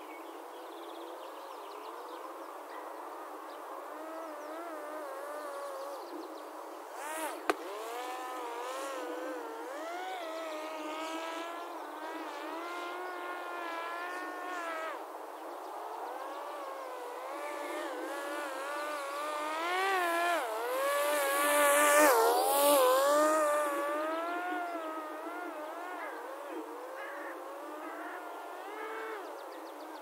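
Parrot Disco drone's electric motor and three-blade propeller buzzing in flight, its pitch rising and falling over and over. It swells to its loudest about two-thirds of the way in, where the pitch drops quickly. A single sharp click comes about a quarter of the way in.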